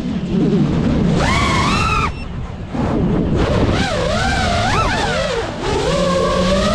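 A 5-inch FPV racing quadcopter's brushless motors and propellers whine, the pitch rising and falling with throttle. The whine drops out briefly about two seconds in, as the throttle is cut during a dive or flip, then comes back wavering. Underneath is a rushing, rumbling noise from the air flowing past.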